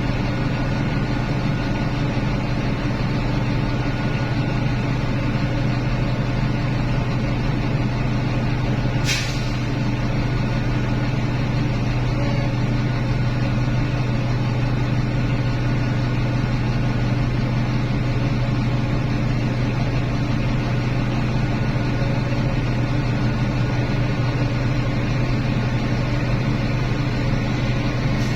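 Heavy mining machinery's diesel engine running steadily with an even low hum, and one short hiss about nine seconds in.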